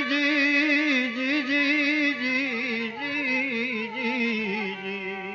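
Male voice singing a long, ornamented held note in a Gujarati sakhi, wavering in pitch and sliding down near the end before breaking off, over a steady instrumental drone.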